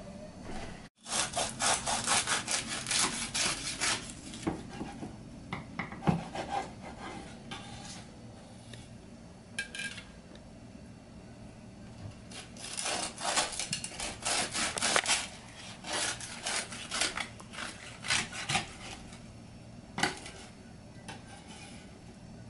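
A carving knife sawing through a roast pork shoulder's crisp skin and meat on a wooden cutting board, in several bursts of rapid back-and-forth strokes with pauses between.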